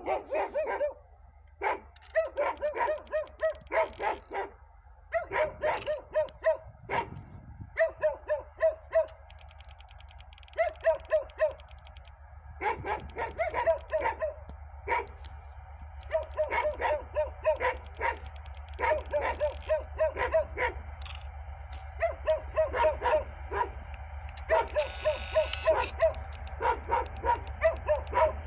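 A dog barking over and over in quick runs of yaps, over the low, steady drone of an approaching 2M62U diesel locomotive's two-stroke engines, which grows louder as the freight train comes closer.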